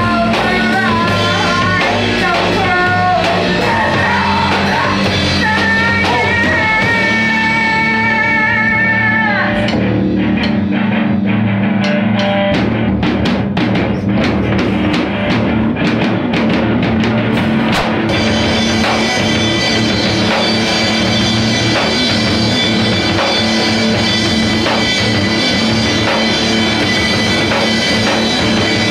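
Rock music with drum kit and guitar. A held, sliding melodic lead carries the first part. A sparser break with sharp drum hits and muffled highs follows, and the full band comes back in about two-thirds of the way through.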